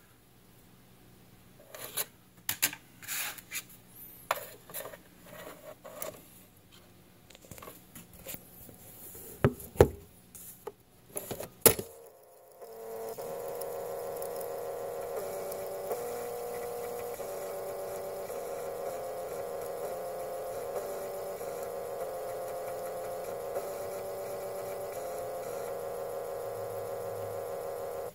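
Apple M0130 400K floppy drive (Sony OA-D34V mechanism) reading a disk. For about twelve seconds it clicks and knocks as the head steps, with two sharp clunks near the end of that stretch. Then a steady singing hum sets in whose pitch steps up and down every second or two: the spindle motor changing speed for the different zones of a GCR-recorded disk.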